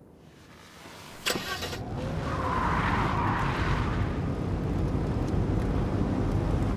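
Car driving at speed: engine and tyre rumble that starts abruptly a little over a second in, with a rush of tyre noise in the middle, and cuts off suddenly at the end.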